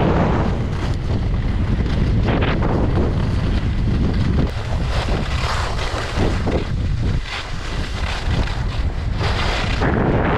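Wind buffeting the microphone of a camera sliding fast down a ski run, as a steady low rumble, with the hiss and scrape of edges carving across packed snow that swells and fades with each turn.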